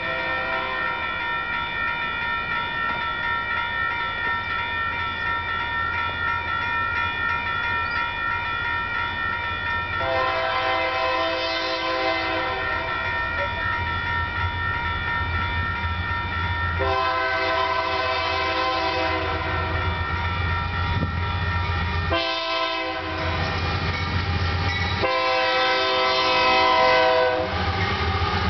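Union Pacific freight locomotive's multi-note air horn sounding the grade-crossing signal: long, long, short, long, starting about a third of the way in. Under it a crossing bell rings steadily and the diesel engines rumble low as the train approaches.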